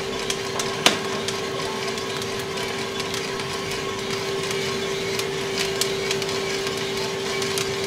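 Coffee beans popping in the first crack inside a small drum roaster: scattered sharp cracks, 'like popcorn', with one louder crack about a second in, over the steady hum of the roaster's drum motor and fan. First crack marks beans at roughly 385–390 degrees, the start of the drinkable roast range.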